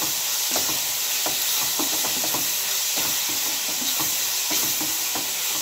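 Sliced onions sizzling in hot oil in a metal pan as they are sautéed, with a spatula stirring them and scraping and tapping against the pan at irregular moments over a steady frying hiss.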